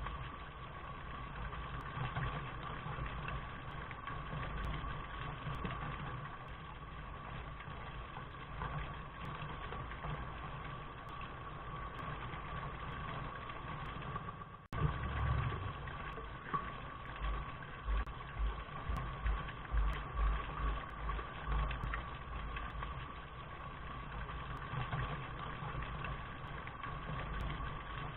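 Steady rain hiss with a low, uneven rumble underneath. The sound drops out for an instant about halfway through and picks straight back up.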